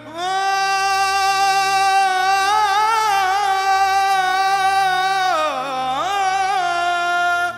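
Background music: a singer holds one long note with a wavering pitch over a steady low drone. The voice swoops down and back up about five and a half seconds in, then cuts off near the end.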